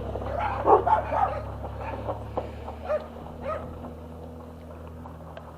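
A dog barking and yipping in short bursts, most in the first second and a half, then a few more around three seconds in before it settles. A steady low hum runs underneath.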